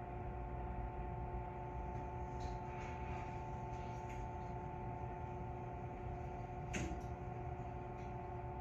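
JR West 221 series electric train standing with its onboard equipment running: a steady electrical hum with several held tones over a low rumble, and one sharp click about seven seconds in.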